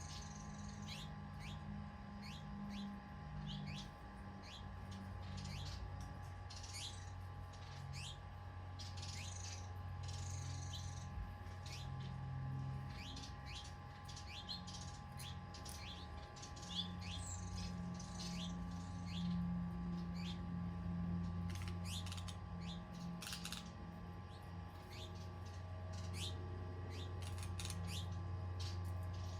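Small birds chirping and trilling with many short, quick calls, over a steady low hum and a faint steady whine.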